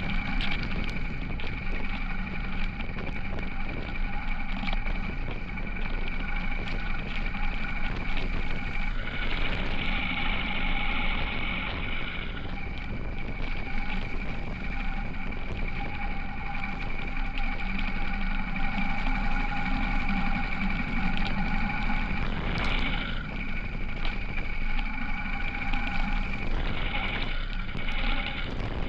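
Motorcycle engine running at a steady pace while riding, with road and wind noise.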